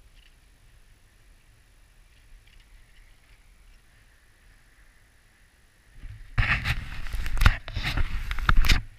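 About six seconds of near quiet with a faint hiss, then loud irregular rustling, scraping and sharp knocks as the action camera is picked up and handled.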